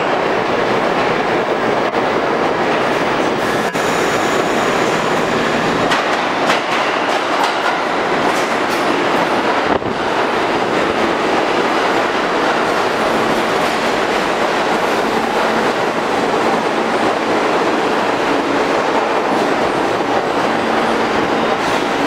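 R160 subway train pulling into the station and running along the platform: a loud, steady rumble of steel wheels on rail, with sharp clicks over rail joints and a low steady hum in the second half.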